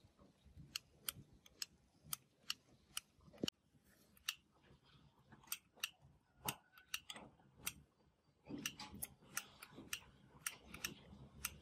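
Small, sharp clicks and ticks of metal tools on a circuit board as parts are desoldered with a hot soldering tweezers and a metal pick, coming irregularly about two or three a second, bunched closer together near the end.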